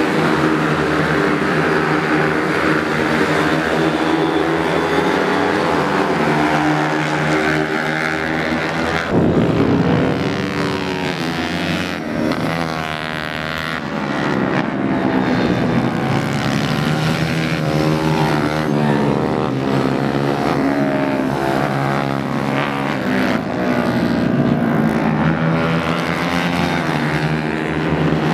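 Several racing motorcycle engines revving hard as the bikes ride past, their pitch climbing and dropping through gear changes, with an abrupt change in the sound about nine seconds in.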